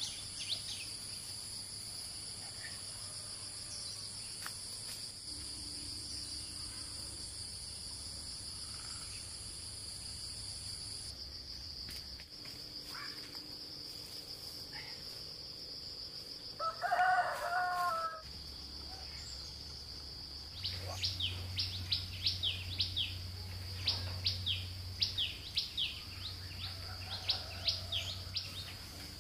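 A steady high insect drone, with one crow of a rooster lasting about a second and a half near the middle. In the last third, rapid high chirps of a small bird repeat several times a second.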